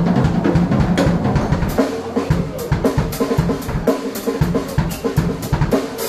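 Drum kit played live in a fast, busy solo: snare and tom fills over bass drum kicks, with cymbal crashes coming thick and fast from about two seconds in.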